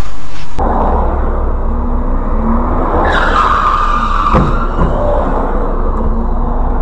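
A car's tyres screech loudly for about a second and a half, starting about three seconds in, with the pitch falling, over a steady engine rumble. A single sharp knock comes near the end of the screech.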